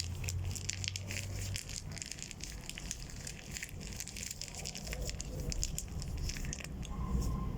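Slime-filled plastic Ziploc bag squeezed and kneaded in the hands, with irregular crinkling and crackling of the plastic.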